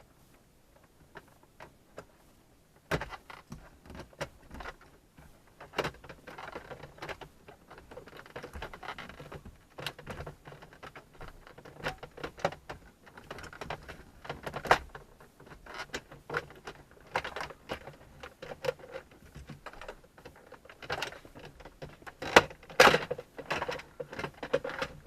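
Plastic dashboard trim panel of a Toyota Supra Mk4 being pulled and worked loose by hand: irregular clicks, knocks and rattles of plastic, starting about three seconds in, with the loudest knocks near the end.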